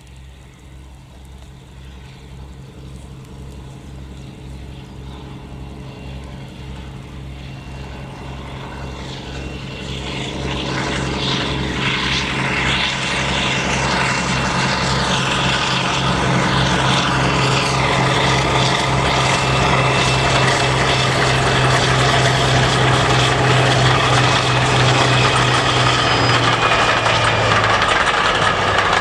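A Class 52 'Western' diesel-hydraulic locomotive approaching and passing under power. Its engines give a steady pulsing throb that grows louder throughout. Near the end the engine note falls away, leaving the rumble and clatter of coaches on the rails.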